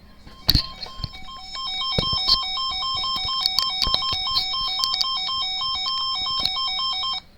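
Electronic emergency alert alarm: a tone warbling rapidly back and forth between two pitches, with scattered clicks over it, cutting off abruptly about seven seconds in.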